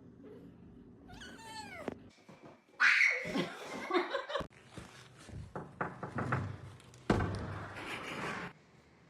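A cat crying: one falling meow a little over a second in, then louder, rougher cries from about three seconds in that stop suddenly near the end.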